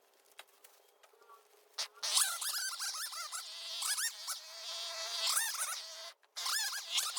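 Rapid run of short, high, rising squeaky calls like an animal's, several a second, starting about two seconds in after near quiet and breaking off briefly just after six seconds.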